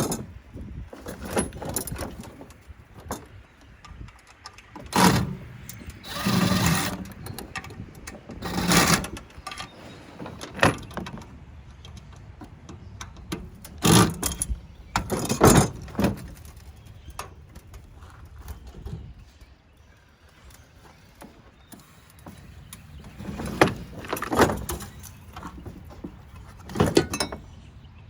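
Intermittent metallic clanks, clicks and scrapes of tools and parts being handled while a Rinnai tankless water heater is dismantled, with several longer scraping or rattling bursts about a second long.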